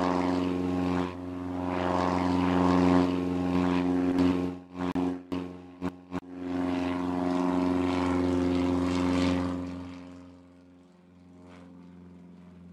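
Propeller aircraft engine droning steadily, cutting out in several brief dropouts about five to six seconds in, then fading away over the last few seconds.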